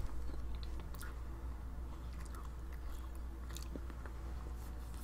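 A person chewing a mouthful of peanut butter and jam sandwich, with scattered soft mouth clicks, over a steady low hum.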